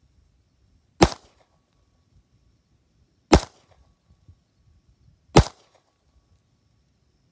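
Three handgun shots fired slowly, about two seconds apart, each a sharp crack with a brief tail. This is unhurried slow fire for accuracy.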